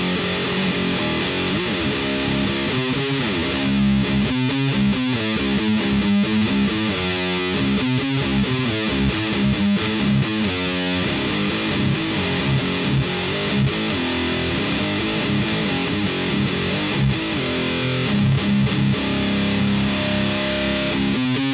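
Heavily distorted electric guitar driven through a thiSHEAvyearth Grim distortion pedal, playing a heavy riff of chugging chords, choppier and more rhythmic for the first half.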